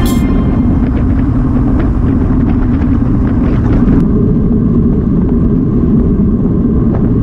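Wind buffeting the microphone of a bike-mounted Garmin VIRB action camera while riding a road bike at speed, a steady low rumble with faint ticks from the bike and road. The rumble changes character at a cut about four seconds in.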